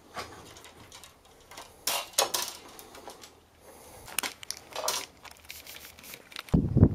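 Handling noise from fishing gear being moved about: scattered rustles, clicks and knocks, with a loud low thump near the end.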